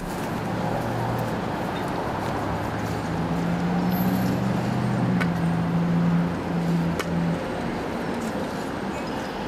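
A motor vehicle engine humming low over steady outdoor noise. Its pitch steps up a few times before it stops about seven seconds in, with a couple of faint clicks.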